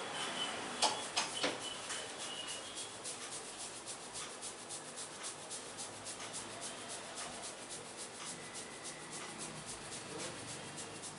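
Head massage: fingers rubbing through hair, a steady run of soft crackling ticks at about four a second, with a few sharper clicks about a second in.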